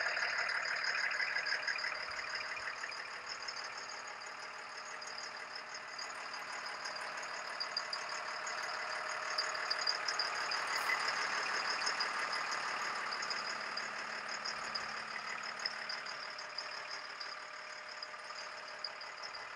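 Caterpillar 3116 diesel engine of an M1079 LMTV truck idling steadily. It grows fainter a few seconds in and louder again about ten seconds in.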